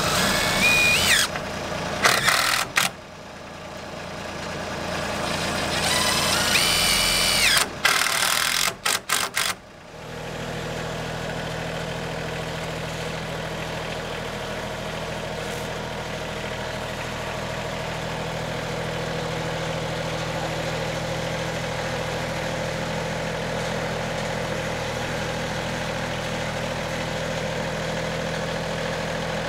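A cordless driver whines up twice in the first few seconds as it drives fasteners, with some short stop-start bursts around eight seconds in. From about ten seconds in, a Massey Ferguson compact tractor's engine idles steadily.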